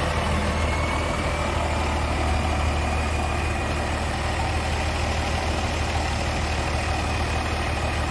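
Old bulldozer's diesel engine idling steadily.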